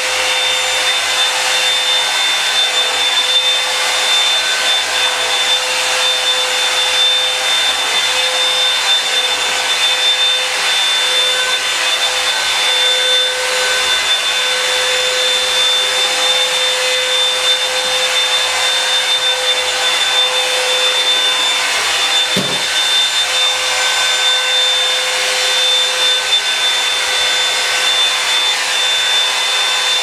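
Revlon One-Step hot-air brush blow-drying hair: its motor and fan run steadily, a rush of air with a constant high whine.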